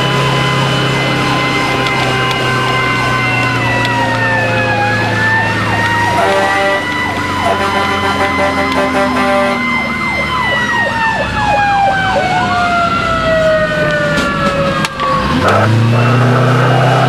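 Fire engine siren heard from inside the cab, sweeping through slow wails and fast yelps, with one tone slowly winding down in pitch near the end. The truck's engine runs underneath and pulls harder in the last couple of seconds.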